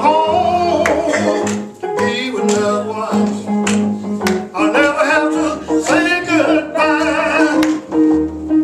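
Live gospel singing with instrumental accompaniment: voices sing a melody over steady held chords.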